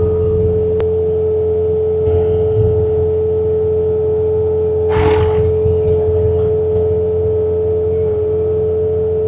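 Bobcat T66 compact track loader's diesel engine running under load with its snowblower attachment working, giving a low steady drone under one constant high whine. A brief louder rush comes about five seconds in.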